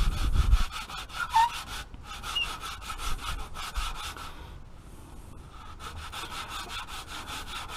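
Sandpaper rubbed back and forth by hand on a car exhaust pipe to clean it up: quick, rhythmic scraping strokes that stop for about a second and a half partway through, then resume. A dull low bump at the start.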